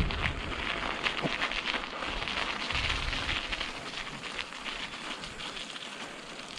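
Bicycle tyres crackling steadily over the road surface during a ride, with low rumbles of wind on the microphone, fading slightly near the end.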